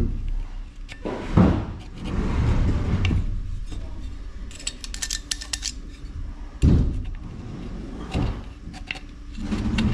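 Metal clinks, scraping and light rattling as a tool is worked into a steel engine breather pipe to dig out caked oil and carbon, with a couple of knocks, the loudest a little before seven seconds in.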